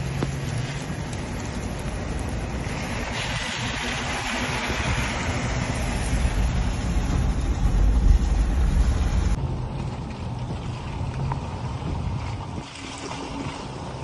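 Steady wind-like noise, then the low rumble of a Toyota four-wheel drive driving over wet desert ground, heard from inside the cabin and loudest about eight seconds in. The rumble gives way to a quieter steady noise near the end.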